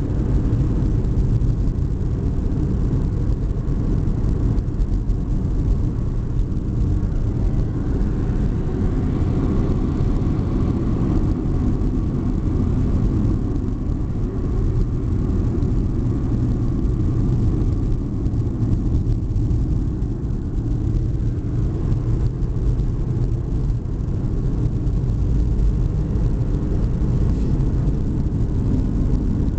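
Steady low rumble of a car driving on a winding mountain road, road, engine and wind noise heard from inside the cabin.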